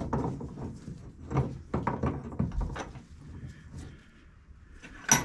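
Metal parts of a classic Mini cross-pin differential knocking and clunking as the diff assembly is handled and set up in a bench vise, with one sharp, loud knock near the end.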